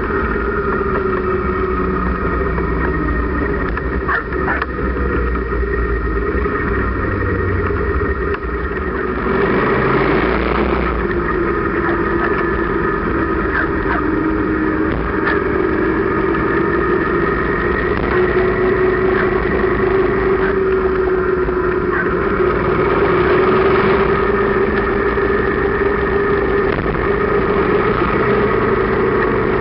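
Motorcycle engine running steadily as a sidecar rig cruises down the road, its pitch shifting a little with speed, with road and wind noise. A louder rush of noise comes about nine seconds in and lasts a couple of seconds.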